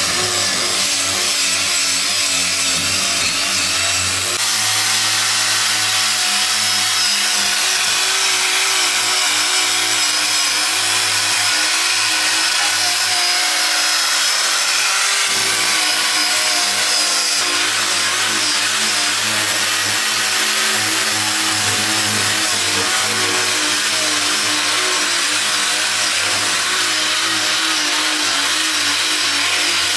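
Handheld cordless power tool running continuously against wood, with a steady motor whine. The pitch shifts abruptly about four seconds and again about fifteen seconds in.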